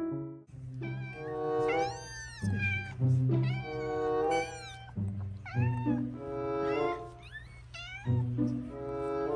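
Young kittens mewing again and again, short high-pitched mews that rise and fall in pitch. Background music with held notes and a steady bass plays underneath.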